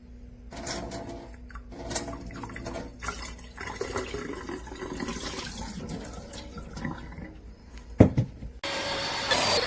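Water running and splashing irregularly, with a sharp knock about eight seconds in, then a steady rush of water that cuts off suddenly at the end.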